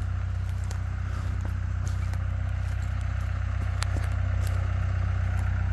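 CAT 252B skid steer's diesel engine running steadily, with scattered faint clicks and crackles over it.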